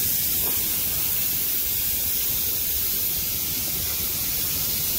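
Steady hiss of compressed air leaking from a shop air line.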